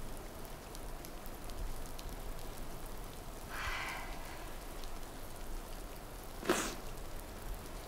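Steady rain falling, an even hiss, with a soft breath about three and a half seconds in and a short sharp sound about six and a half seconds in.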